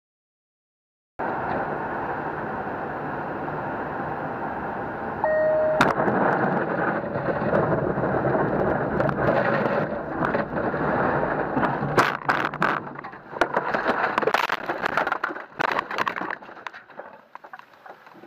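Road noise of a moving vehicle, starting after a second of silence, with a short beep about five seconds in. From about six seconds it grows louder and rougher, with a string of sharp knocks, then dies away near the end.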